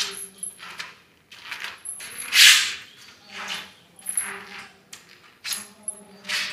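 Footsteps of woolen slippers on a polished tile floor, one noisy step about every half second to a second, the loudest about two and a half seconds in. The slippers make a noise with each step, like children's noise-making footwear.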